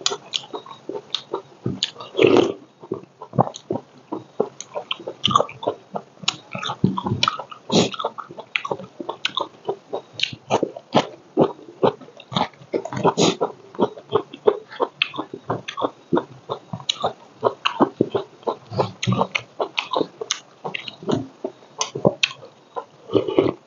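Close-miked eating sounds from one person: steady chewing with wet lip smacks and mouth clicks, and slurps as he drinks from a bowl.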